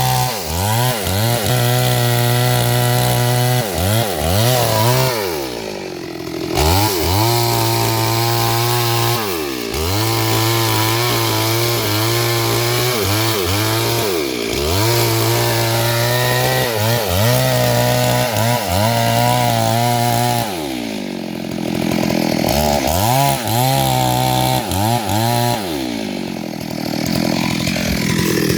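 Two-stroke chainsaw running at high revs, its engine speed dropping and climbing back up again and again, as when the throttle is eased and squeezed or the chain bogs in the cut.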